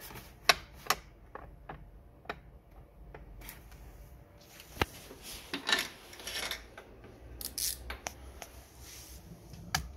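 Sharp clicks and light metallic clatter of hand tools and plastic trim and connectors being worked at a car battery, including a socket extension on a bolt, with short scraping rustles around the middle.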